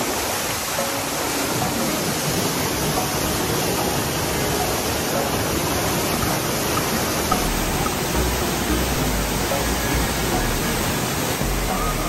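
Waterfall pouring into a rock pool: a steady, even rush of falling water. From about halfway through there is also a low, uneven rumble.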